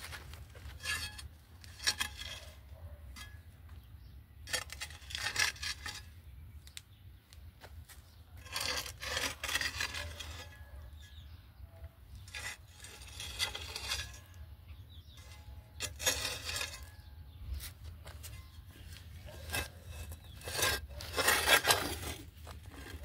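A foot in a rubber slide sandal scraping loose dry dirt and grit across the ground to fill in a small hole: irregular scrapes, each a second or two long, with a few sharp clicks of small stones, the loudest scrape near the end.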